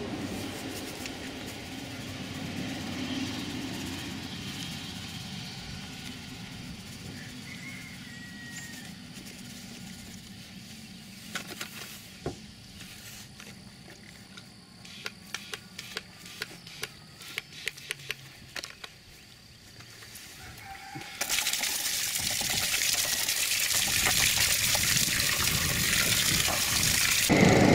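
Garden hose spray nozzle jetting water into a plastic tub of live crawfish, starting suddenly about three-quarters of the way through and cutting off shortly before the end. Before it, a low steady hum, and in the middle a run of sharp clicks and knocks.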